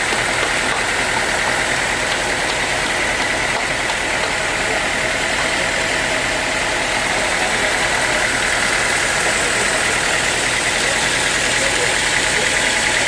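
Sawmill machinery running steadily, a constant mechanical drone with a steady high whine.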